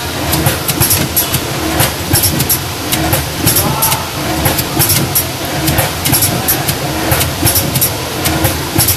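Packaging machinery running: a steady mechanical clatter with frequent sharp clicks over a low rumble.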